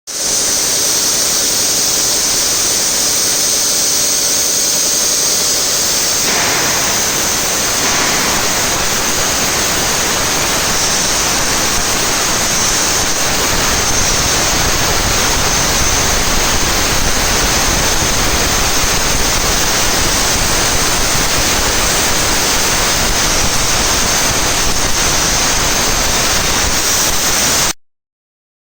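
Steady loud hiss of a torch running on a welding and cutting trolley, growing fuller and deeper about six seconds in, then cutting off abruptly near the end.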